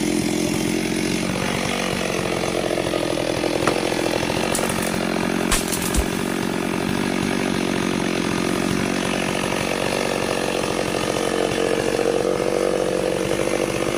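Stihl chainsaw running at high speed, cutting into a sengon log, with a shift in engine pitch about a second and a half in. A few short sharp knocks come between about four and six seconds in.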